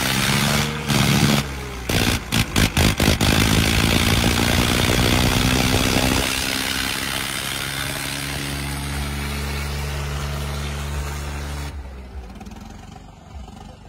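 Swaraj 855 tractor's three-cylinder diesel engine running hard, heard close up. The sound breaks off briefly several times in the first three seconds, then runs steady until it drops away about twelve seconds in.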